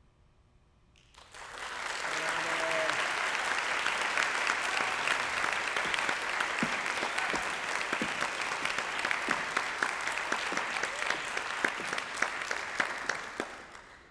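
Audience applauding after the aria, a dense patter of clapping that starts about a second in and fades out near the end.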